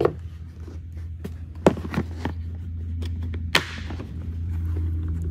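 A hard plastic pistol case being set down and handled: a few sharp plastic clacks and knocks, the loudest about three and a half seconds in, over a steady low hum.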